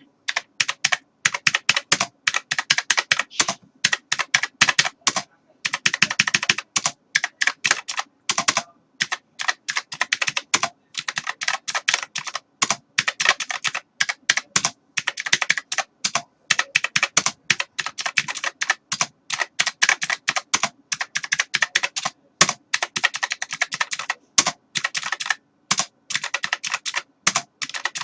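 Typing on a computer keyboard: fast runs of key clicks in bursts of a second or two, broken by short pauses.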